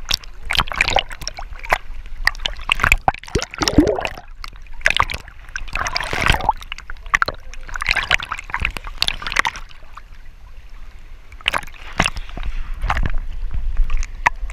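Sea water splashing and sloshing right against a GoPro camera held at the surface by a swimmer, the camera dipping in and out of the water. Irregular sharp splashes, some with a gurgle.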